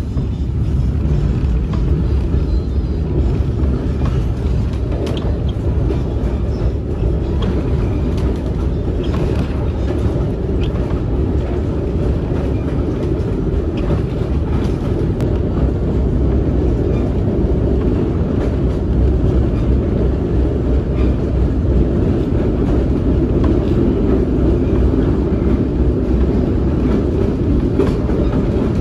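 Passenger train heard from on board while it rolls along: a steady low rumble of wheels on the track, with a few faint clicks and rattles.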